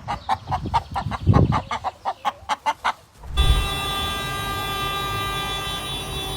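Chickens clucking in quick repeated bursts, with a low thud about a second and a half in. A little over three seconds in this cuts off and gives way to a steady hum with several held tones.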